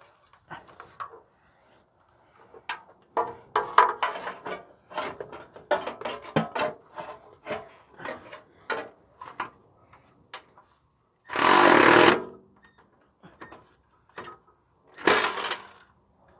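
Metal tools and hardware clinking and clicking while bolts and washers are fitted to an exhaust heat shield, then two short runs of a power tool, each about a second long, driving the bolts in.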